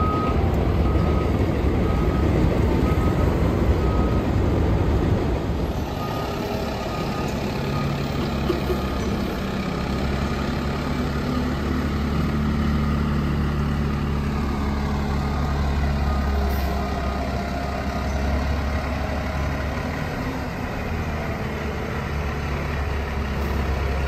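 Diesel engines of FDNY fire apparatus, a pumper and then a ladder truck, running as they pull out of the firehouse. A back-up alarm beeps steadily over them in the first few seconds and again twice later on.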